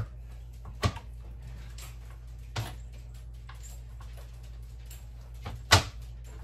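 Knife chopping a bar of baker's chocolate on a cutting board: a few sharp, irregularly spaced knocks, the loudest near the end, with lighter taps between.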